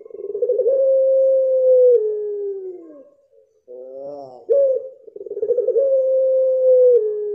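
Puter pelung dove, an ornamental ringneck dove bred in Indonesia for its long coo, giving long drawn-out coos, twice. The second coo begins about halfway through. Each opens with a short rising note, wavers, then holds a long tone that steps down and slides lower at the end.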